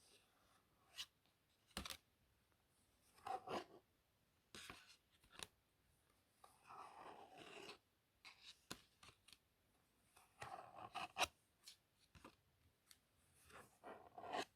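Playing cards handled close to the microphone: short papery rustles as cards slide and rub against each other, broken by sharp flicks and taps of single cards, scattered irregularly. The loudest tap falls about eleven seconds in.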